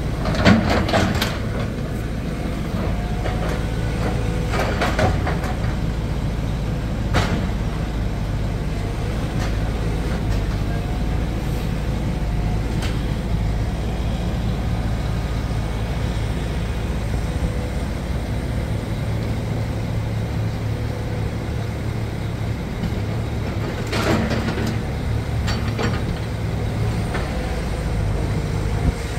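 Compact tracked excavator's diesel engine running steadily under load during a house demolition, with crashes of breaking wood and debris several times, loudest about a second in and again a few seconds before the end.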